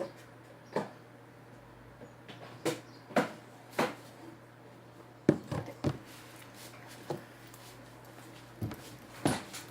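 About ten scattered knocks and clicks from objects being handled and set down, the loudest about five seconds in, over a steady low hum.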